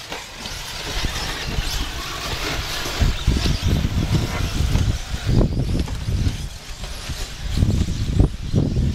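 Electric 1/8-scale RC off-road buggies running on a dirt track, with uneven low rumble from wind on the microphone.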